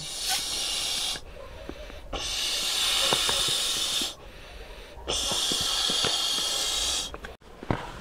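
An inflatable camping pillow being blown up by mouth: three long, hard breaths into its valve, the first about a second long and the next two about two seconds each, with short pauses between.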